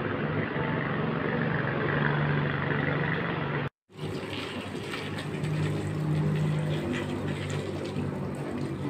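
Roadside street ambience: traffic noise with a steady low engine hum. The sound drops out completely for a moment a little before four seconds in, then carries on.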